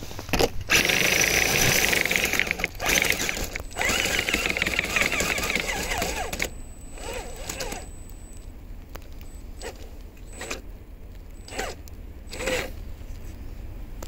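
Small electric RC crawler driving through snow: motor and gear whine mixed with snow scraping under the tyres or tracks. It is loudest over the first half, then comes in a few short bursts of throttle.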